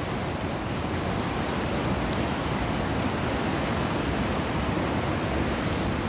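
Eagle River in flood at about 7,400 cfs, its whitewater rushing in a steady, even wash of noise.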